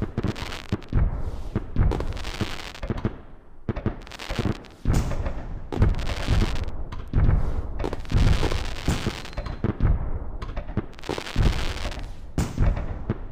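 Fireworks display: aerial shells bursting in quick, overlapping succession, about a dozen booms, each trailing off in a hissing crackle.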